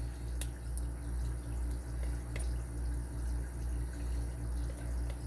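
A steady low background hum that swells and fades regularly, a little under twice a second, with a couple of faint light clicks.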